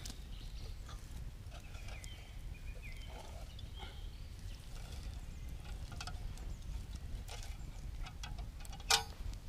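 Wood campfire crackling, with scattered small pops and snaps over a low steady rumble; near the end a single sharp clink with a short ring stands out as the loudest sound.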